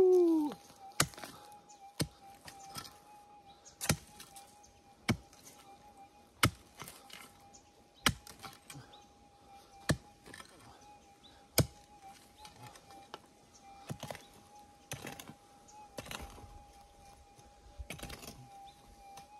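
A digging tool strikes into stony ground, one sharp blow every second or two, as a gold target is dug out. Under the blows a metal detector's steady threshold hum runs on.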